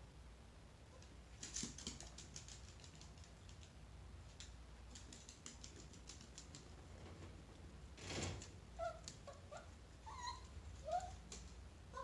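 A chihuahua's claws clicking on a hardwood floor in quick runs of light taps as it trots about. About two-thirds in comes a soft thump, followed by a few short, high-pitched whimpers.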